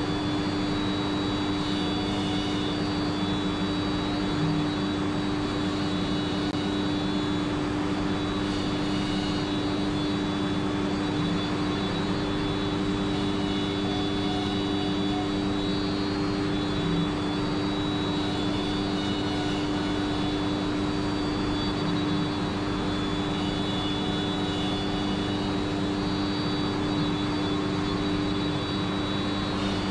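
HOMAG CENTATEQ CNC machining centre running while it machines a cabinet panel: a steady, unbroken machine hum with a constant high whine over it.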